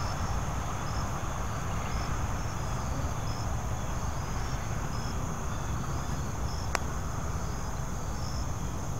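Insects chirping at dusk: short chirps repeating about once a second over a steady high trill. A single sharp click comes near the end.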